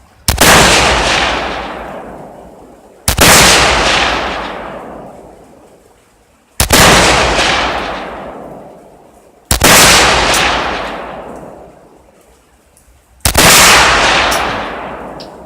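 Tokarev SVT-40 semi-automatic rifle firing 7.62x54R: five single shots about three to four seconds apart, each a sharp crack that echoes away over a couple of seconds.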